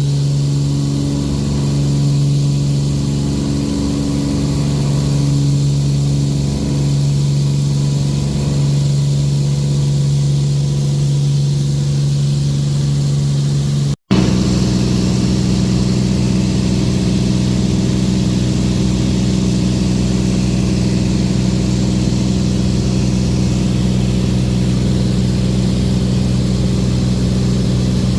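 An engine drones steadily with a strong low hum. There is a cut about halfway through, after which the drone carries on at a slightly different pitch.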